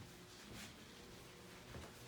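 Near silence: room tone with a faint steady hum and a faint tick about half a second in.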